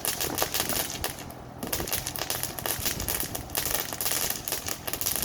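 Crackling firework going off: a dense, rapid crackle of many tiny pops, thinning briefly about a second in.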